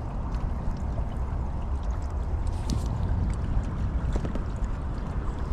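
Pontoon boat on the water: a steady low rumble with a wash of water noise.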